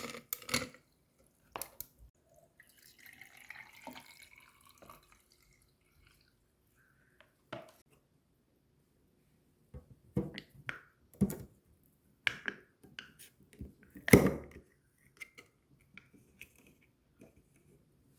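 Scattered knocks and clicks of things being handled, with a stretch of soft, noisy sound a few seconds in.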